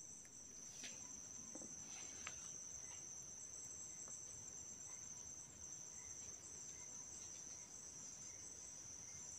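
Faint, steady, high-pitched drone of forest insects, with a few faint clicks or twig snaps in the first couple of seconds.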